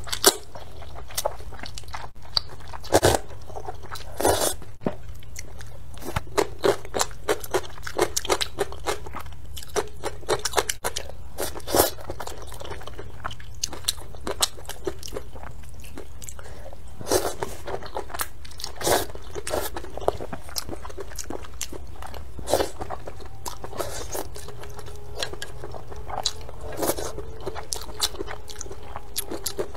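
A person eating spicy rice noodles, slurping and chewing close to the microphone: an irregular run of short, sharp mouth clicks and bites.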